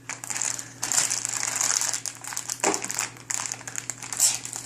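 Plastic packaging of a Happy Meal toy crinkling and crackling irregularly as it is handled and pulled at, the sealed bag not yet tearing open.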